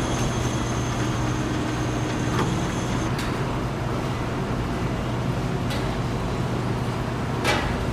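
Metalworking factory machinery running with a steady low hum and a thin high whine that stops about three seconds in. A few sharp knocks or clanks, the loudest near the end.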